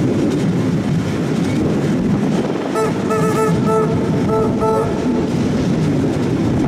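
Victorian Railways Tait electric suburban train running, heard from an open window on board: steady rumble and clatter of the wheels on the track. About three seconds in, a run of short pitched tones sounds several times in quick succession for about two seconds over the running noise.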